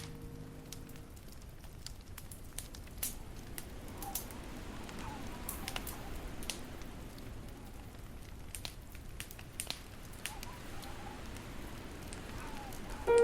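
Fireplace crackling: irregular sharp snaps and pops of burning wood over a steady soft hiss, heard in a pause between piano pieces.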